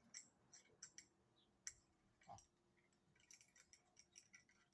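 Faint small clicks and taps from handling and adjusting the parts of a camera stabilizer rig, scattered and irregular, growing busier near the end, with one soft knock about two seconds in.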